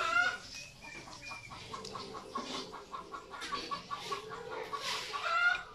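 Chickens clucking with short repeated notes, with two louder rising squawks, one right at the start and one near the end.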